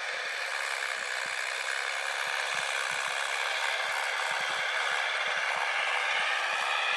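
Mahindra 475 DI tractor's diesel engine running, growing gradually louder as it comes closer.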